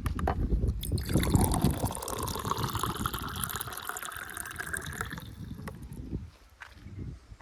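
JCB 3DX backhoe loader's diesel engine running under a rushing, pouring noise that starts about a second in and stops about five seconds in, as wet mud slides from the bucket into the tractor trolley.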